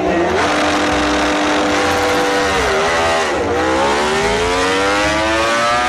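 Sound effect of a racing motorcycle engine revving hard: it holds high revs, dips briefly about three seconds in, then climbs steadily in pitch.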